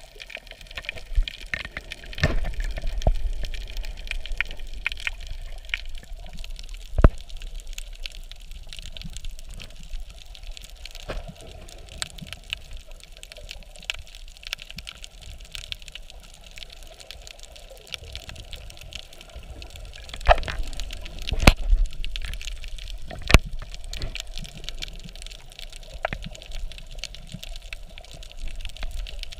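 Water heard underwater: a steady muffled wash and swirl of water, with scattered sharp clicks and knocks. One loud knock comes about seven seconds in and a cluster of louder ones about twenty seconds in.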